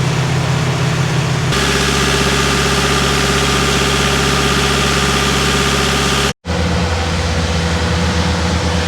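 Large diesel engines of harvest machinery running steadily. The engine sound changes abruptly about one and a half seconds in, then cuts out briefly a little after six seconds and returns with a different note.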